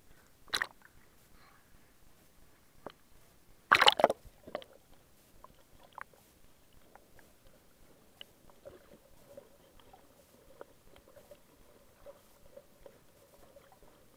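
Underwater sound heard through a camera's waterproof housing: a short rush of water against the housing about half a second in and a louder, longer one around four seconds in. After that come scattered faint clicks, with a faint steady hum joining after about eight seconds.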